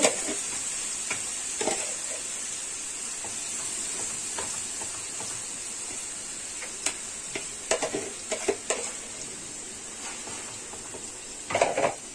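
Marinated chicken pieces frying in butter and oil in a kadai, with a steady sizzle. A spatula scrapes and clacks against the pan a few times, loudest in a burst of stirring near the end.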